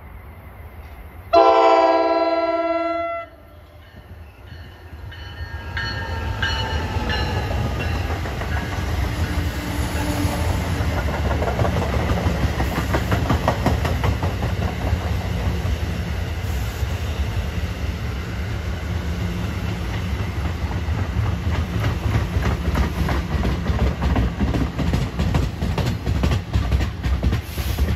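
New Jersey Transit commuter train's cab-car horn sounds one held chord for about two seconds, the warning sounded when approaching a platform. Then the train of bilevel coaches rumbles in past the platform, its wheels clicking over the rails, growing louder over several seconds.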